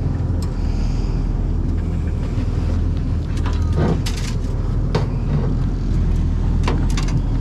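Boat's outboard motor idling steadily, with a few sharp knocks and rattles in the second half as a collapsible crab pot is handled against the aluminium hull.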